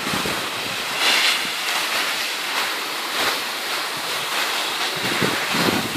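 Steady rushing hiss of skis sliding over groomed snow, mixed with wind on the microphone.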